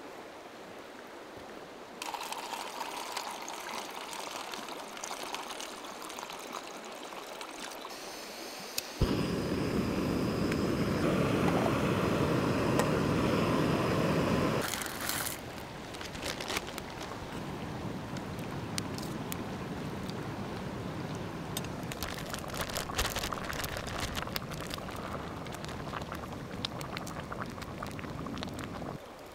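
Camp cooking on a backpacking gas stove. Water pours into the cook pot for about six seconds, loudest in the middle of the stretch. After that, short clicks and clinks come from a spoon stirring food in the metal pot.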